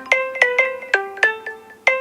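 A stock Samsung Galaxy S6 Edge Plus ringtone playing: a short looping melody of struck notes that each fade quickly, about three to four notes a second, the phrase repeating about every two seconds.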